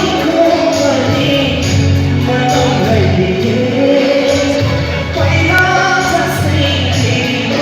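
Live band music with singing: a sung melody over a steady bass line and a regular cymbal beat.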